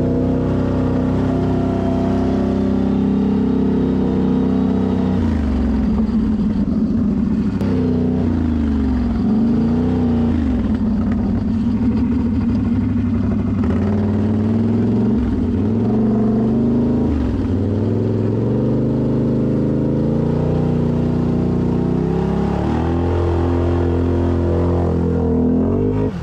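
Quad ATV engine running under throttle while riding through mud and water. The engine note drops sharply and climbs back several times in the middle stretch as the throttle is let off and opened again.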